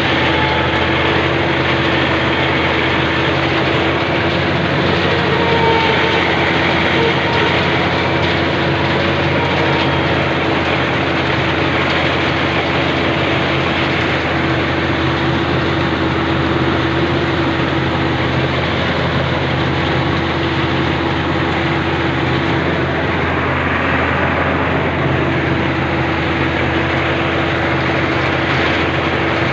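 Rice combine harvester running steadily, its engine and machinery a loud, constant drone with a steady hum.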